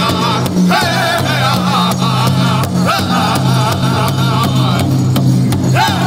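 Powwow drum group singing an intertribal song in unison over an even, steady beat struck together on a large shared rawhide drum. The singing drops out briefly near the end while the drumbeat carries on.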